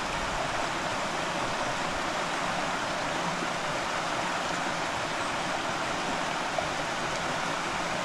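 Mountain river rushing steadily over rocks.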